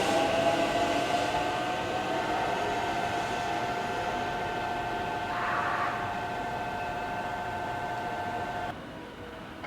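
Biwako Express limited express train pulling away, its steady whine rising slightly at first and then holding while it slowly fades. A short hiss comes about five and a half seconds in, and the sound cuts off suddenly near the end.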